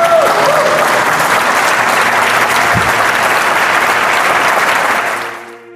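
Audience applauding steadily, fading out about five seconds in.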